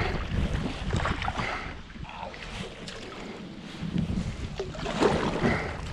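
Paddle strokes and water splashing around a plastic sit-on-top fishing kayak, under a steady rumble of wind on the microphone. The splashing is strongest in the first couple of seconds, eases off in the middle and picks up again near the end.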